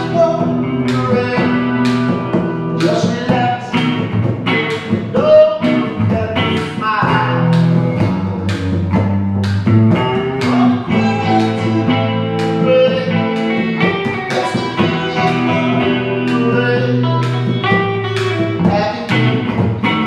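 An acoustic guitar and a solid-body electric guitar through an amplifier playing a song together, with plucked notes over held chords.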